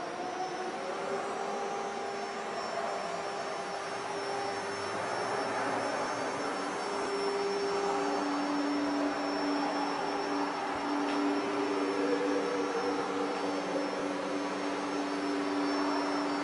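Air-cooled spindles of a twin-head CNC router running: a steady rushing hiss with a held whining tone, joined about halfway by a second, lower tone.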